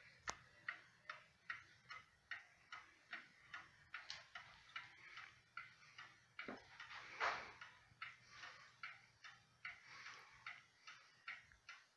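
Ansonia Trieste mantel clock ticking faintly and evenly, about two and a half ticks a second. There is one brief, louder soft rustle about seven seconds in.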